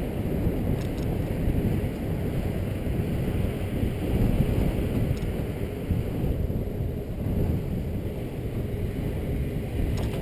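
Steady wind rush on a bike-mounted GoPro's microphone while cycling at speed, with low road and traffic rumble underneath.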